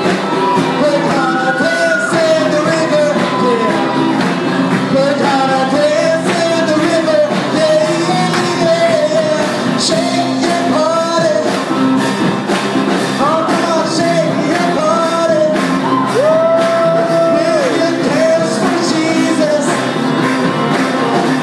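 A worship song performed live, with singing over a strummed acoustic guitar. The melody holds long notes and slides between them, over a steady strumming rhythm.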